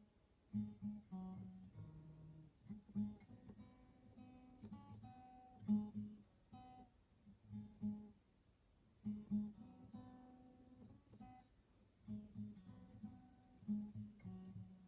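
Acoustic guitar played solo: plucked notes and chords in short phrases, each ringing and fading before the next.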